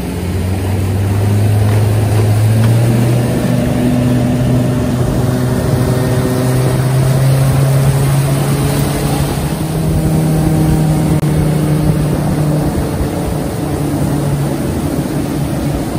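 Speedboat engine running at speed, its pitch rising over the first few seconds and then holding steady, with water rushing and spraying off the hull.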